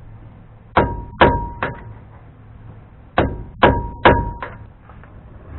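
Hammer striking a steel drift against the rust-stuck Dana 44 front spindle to drive it out of the steering knuckle: three ringing metal blows, a pause, then four more.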